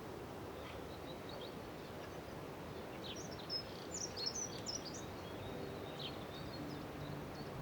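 Small birds chirping in short, high calls, busiest in the middle, over a steady outdoor hiss. Faint held musical notes fade in near the end.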